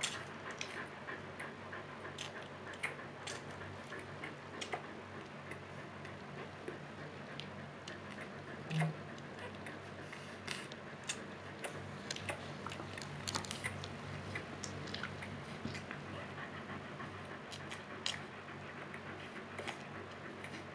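Newborn husky puppy suckling at its mother's teat: irregular small wet clicks and smacks, over a steady low hum. There is one short low bump about nine seconds in.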